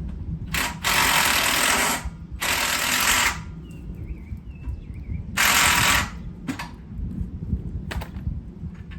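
Power tool undoing the last bolt holding the gearbox, run in several bursts of about a second each.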